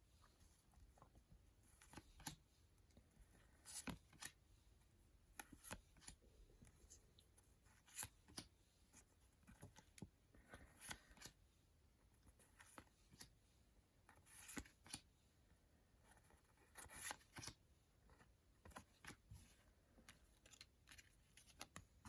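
Faint, scattered rustles and soft clicks of paper stickers and trading cards being handled and sorted.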